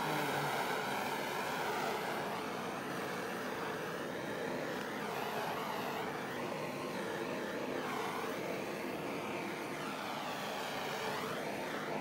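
Handheld butane torch burning with a steady hiss, its sound wavering as the flame is swept back and forth over wet acrylic paint to pop bubbles.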